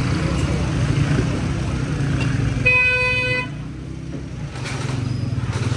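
Traffic noise with a steady low rumble, and one short single-note vehicle horn beep about three seconds in.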